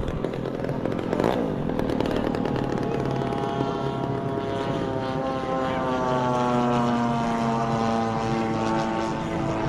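Engines and propellers of radio-controlled warbird model airplanes running in flight. One passes close about a second in, then a steady engine drone whose pitch slowly sinks.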